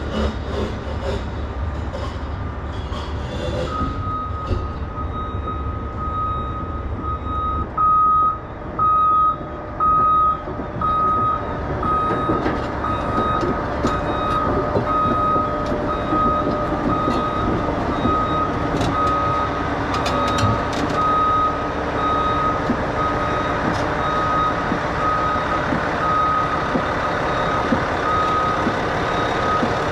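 Backup alarm on heavy equipment beeping steadily as a machine reverses, over a diesel engine running. The beeping starts a few seconds in and is loudest for three beeps around eight to ten seconds in.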